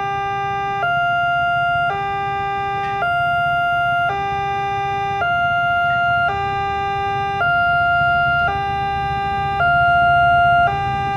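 Automatic warning siren of a railway level crossing sounding a two-tone alternating wail, switching between a low and a high tone about every second, the signal that a train is approaching and the crossing is closing. A steady low rumble runs underneath.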